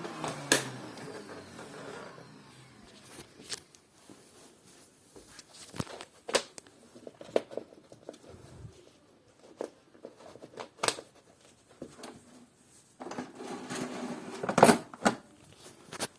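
Juro-Pro Allegra-A vacuum cleaner's motor winding down after being switched off, its pitch falling away over the first two seconds. Then scattered sharp clicks and knocks from handling, with a stretch of rustling near the end.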